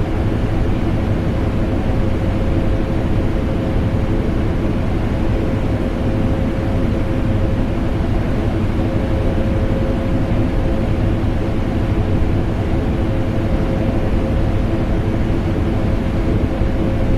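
Vacuum cleaner motor and air conditioner running together in a steady, unchanging drone, with a faint constant whine over the deep rushing of air.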